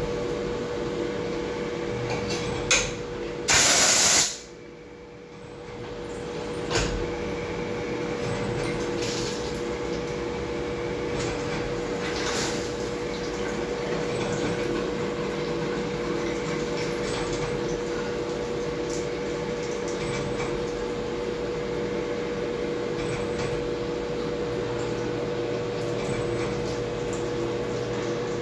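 CNC machining centre drilling a metal flange under flood coolant: a steady hiss and splash of coolant spray with a steady machine tone under it. A loud burst of noise lasting under a second comes about three and a half seconds in, followed by a brief drop in level.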